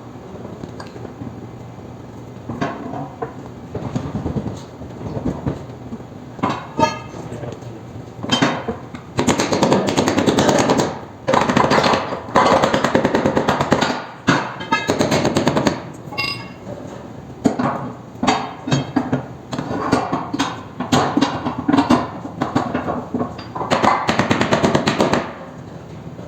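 Bursts of rapid metal-on-metal impacts, each lasting a second or two, with a few ringing clinks in between, as tools work loose a roller coaster's wheel assembly.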